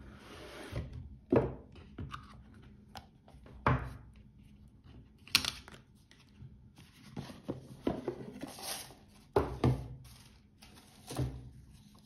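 Cardboard watch packaging being handled: box lids and sleeves sliding and scraping, with about six sharp knocks as boxes are set down and turned over on a table.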